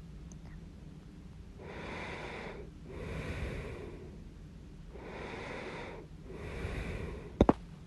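A person breathing audibly in and out, about four slow breaths, then one loud, sharp hiccup near the end.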